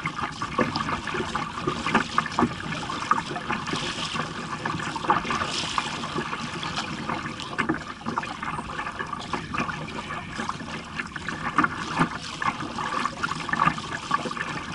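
Water splashing, gurgling and trickling against a kayak's hull as it is paddled through choppy water, in an uneven run of small splashes.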